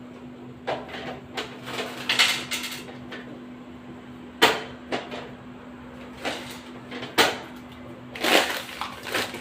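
Rummaging through kitchen cupboards and containers: an irregular series of knocks and clatters of doors, lids and utensils being handled, with sharper hits about four and a half and seven seconds in. A steady low hum runs underneath.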